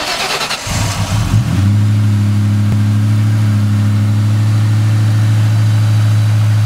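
Eaton M112-supercharged 4.6 L V8 of a Mustang SVT Cobra 'Terminator' starting up. It catches about a second in, then settles into a steady idle.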